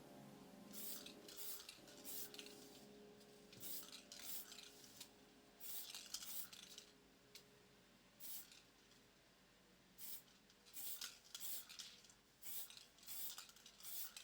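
Faint, irregular short scrapes or snips, about a dozen of them, spaced unevenly, from hands working on a small plastic tape measure.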